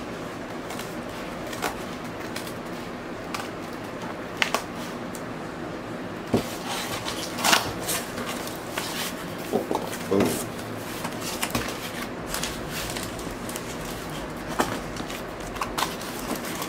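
A cardboard vinyl-record mailer being handled and opened and the shrink-wrapped LP slid out: scattered crinkles, taps and cardboard scrapes over a steady low hum.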